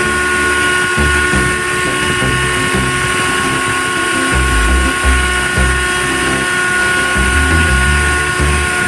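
Electric drill running steadily at speed, giving a constant high whine.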